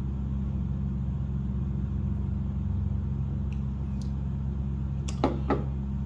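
Steady low hum of a room air-conditioning unit running. A couple of short sounds come near the end.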